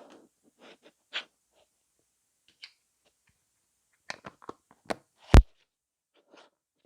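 Scattered small clicks and rustles, like something being handled, with one loud knock about five seconds in.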